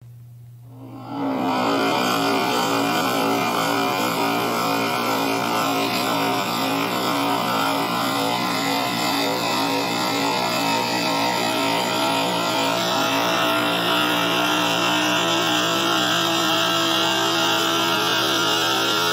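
Dense, distorted drone with a steady low hum and many held tones, the sound of a short cartoon voice clip looped and stacked on itself countless times until no words are left. It drops out for about a second at the start, then runs on steady and loud.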